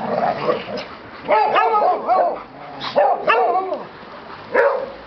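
A pack of dogs giving excited greeting calls, short rising-and-falling whines and yelps in quick runs of several at a time, with pauses between the runs.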